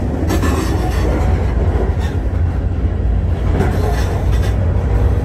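Freight train rolling, heard from aboard one of its cars: a steady low rumble of wheels on rail with a few faint clacks.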